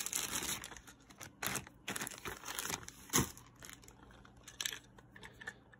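Clear plastic bag crinkling and rustling as a ratcheting screwdriver is handled and pulled out of it, with scattered handling clicks and one sharper click about three seconds in. It dies down near the end.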